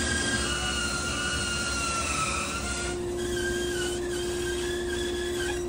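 Shop bandsaw resawing a thick timber lengthwise: a steady motor hum with a wavering whine from the blade in the cut. The whine's pitch shifts about three seconds in.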